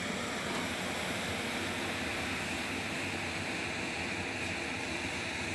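A steady rushing, hissing noise with no distinct events.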